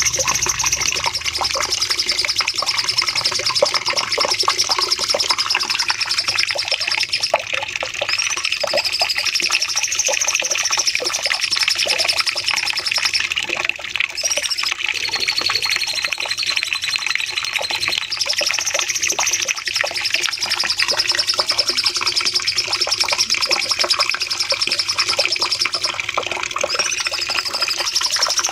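Cucak cungkok (a bulbul) singing long, unbroken runs of rapid high chattering song, 'nembak panjang', with brief pauses about 7, 14, 18 and 27 seconds in.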